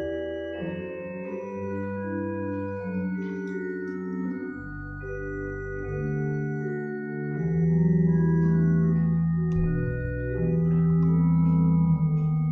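Church organ playing slow, held chords over a bass line. It grows louder about seven and a half seconds in.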